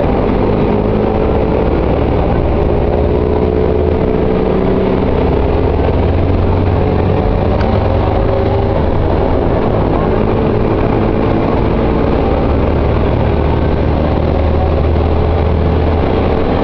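Mercedes-Benz O-500M city bus engine running steadily and loudly with a deep hum, its pitch slowly climbing and then dropping back several times.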